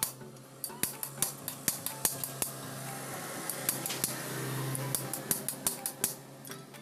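Hand hammer striking a steel chisel driven into a motorcycle swingarm pivot bushing: a run of sharp metallic taps, several a second, thinning out for a moment in the middle.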